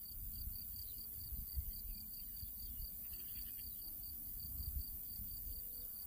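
An insect stridulating in meadow grass: a steady, rapidly pulsing high trill that keeps going without a break. Underneath is a low, uneven rumble of wind on the microphone.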